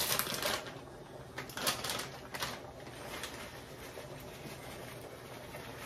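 Plastic bag of shredded cheese crinkling as it is handled and tipped, with a few sharp rustles in the first two and a half seconds, then a low steady hiss.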